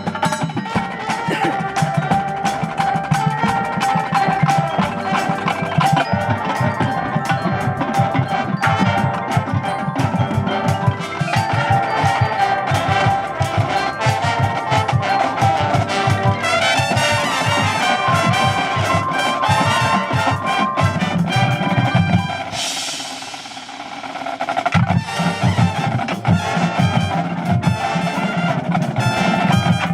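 Percussion ensemble music: drums playing a busy rhythm under marimba and glockenspiel parts. About three quarters of the way through the drums drop out briefly, leaving a high hissing wash before they come back in.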